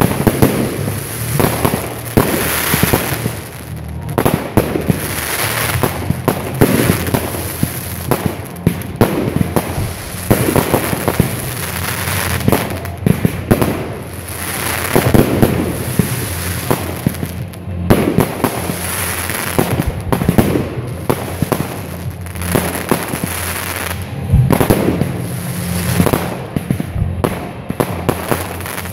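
Fireworks going off in a rapid, unbroken string of launches and aerial bursts, with crackling from crackle stars.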